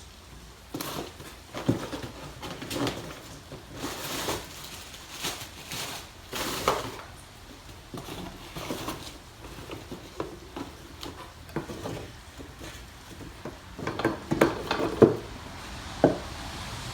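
Irregular clinks, knocks and scrapes of metal and wooden objects being handled and set down on a workbench, with a cluster of sharper knocks near the end.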